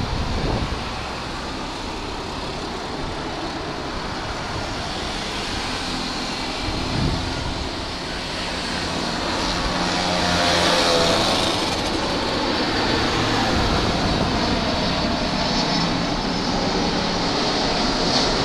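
Airbus A330 airliner's jet engines on final approach to landing: a steady rushing roar that grows louder about halfway through as the jet comes close, with a high whine joining in at the loudest point.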